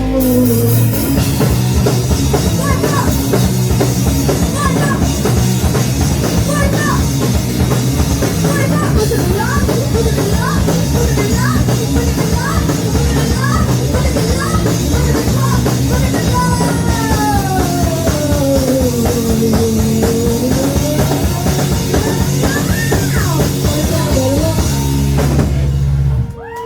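Live punk rock band playing loud, with pounding drums, distorted guitar and slow sliding pitch glides. The music stops abruptly near the end.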